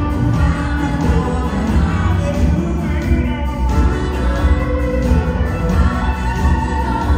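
Live blues-rock band playing loud and steady through the PA: electric guitar, bass, drums and organ, heard from the audience.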